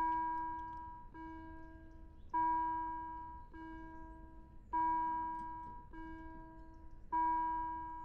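Railway level-crossing warning bell ringing a repeating two-tone ding-dong, about one stroke every 1.2 s, a brighter louder stroke alternating with a softer lower one; it warns that the crossing is closing for a train.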